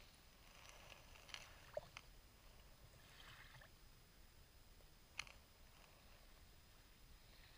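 Very faint lapping of tiny wavelets at the edge of a calm, pebbly sand beach, with a soft swish in the middle and a few small ticks of water.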